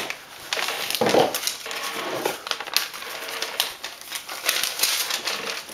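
Paper sticker and its backing sheet rustling and crinkling in the hands as a label is handled and peeled, a dense run of small crackles, with a brief lower sound about a second in.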